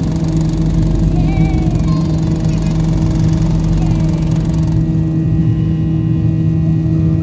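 Airliner jet engines at takeoff thrust, heard from inside the cabin: a loud, steady roar with a constant low hum through the takeoff roll and climb-out. The high hiss drops away about five seconds in.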